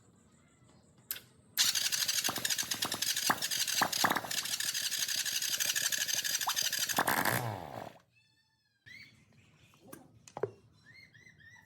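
A loud motor-driven tool runs with a steady hiss for about six seconds, then is switched off and winds down with a falling pitch.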